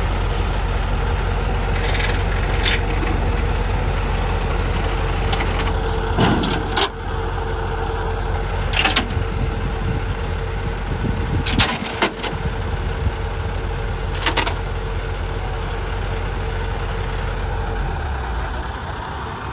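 Kubota combine harvester's diesel engine running steadily with a steady whine, while a stuck combine is towed out of mud; several sharp knocks and clanks break through, and the whine stops near the end.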